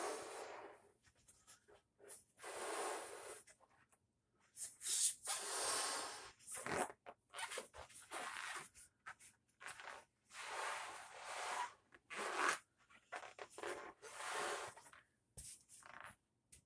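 A pink latex balloon being blown up by mouth: a series of about six forceful breaths blown into it, each lasting around a second, with short pauses between them.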